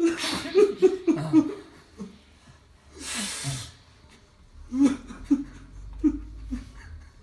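A man sobbing: short, catching sobs in quick runs, broken by a long noisy gasp of breath about three seconds in, then another run of sobs.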